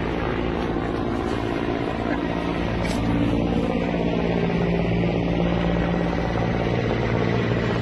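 An engine running steadily: a low drone whose pitch holds level.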